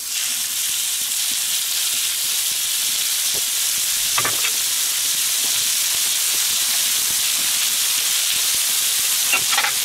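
Marinated chicken skewers sizzling on a hot, oiled steel fire plate as more are laid down: a steady frying hiss.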